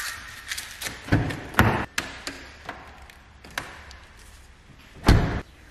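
Hands pulling protective plastic film and tape off a new car's door handle and door edge: scattered taps and clicks, with a louder thump about five seconds in.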